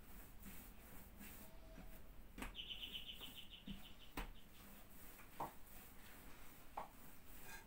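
Faint taps and rubbing of hands rolling dough on a wooden tabletop. A little over two seconds in, a high, fast trill of chirps lasts about a second.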